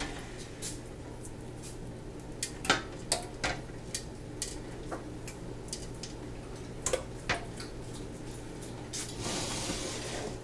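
Filled glass canning jars clinking and knocking against metal as they are set into a pressure canner, a dozen or so irregular clinks and clunks.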